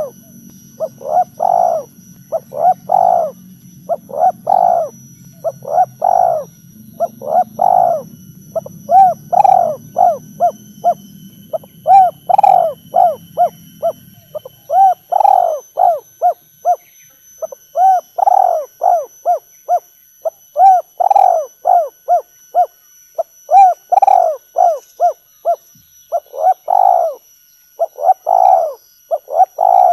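Spotted dove calling the 'kuk 3' call: cooing phrases repeated roughly every one and a half to two seconds, each a few coos with one or two louder notes and quicker short ones. A low hum underlies the first half and stops about halfway through.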